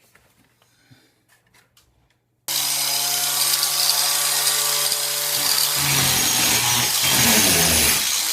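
A few faint clicks, then about two and a half seconds in a power tool starts suddenly and runs steadily, cutting out sagging, water-damaged plaster from a ceiling. Its pitch shifts about in the second half as it works under load.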